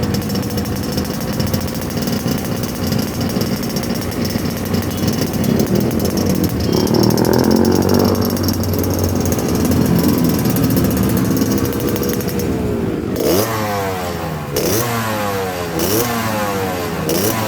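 Yamaha RX-King's two-stroke single-cylinder engine, fitted with a Kawasaki Ninja reed valve, running steadily and then held at higher revs about a third of the way in. Near the end the throttle is blipped four times, each a quick rise and fall in pitch.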